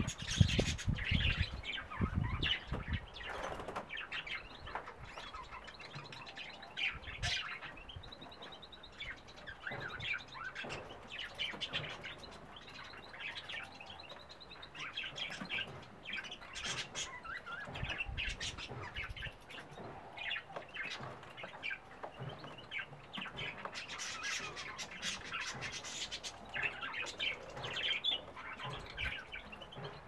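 Many small songbirds in an aviary chirping and twittering continuously, the calls overlapping into a steady busy chatter. A few low thuds come in, the loudest in the first second or two.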